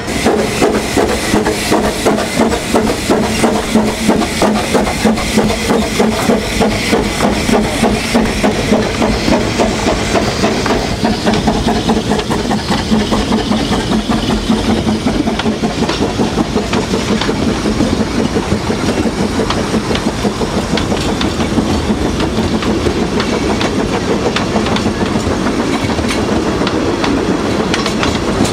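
Narrow-gauge steam locomotive pulling a train away, its exhaust chuffing at about two beats a second at first, then quicker and less distinct. Later the passenger coaches roll past, clicking over the rail joints.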